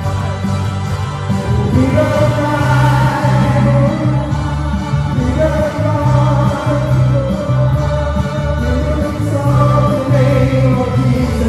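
Live praise band playing a gospel worship song: several voices singing together over electric bass guitar, with a steady, prominent bass line.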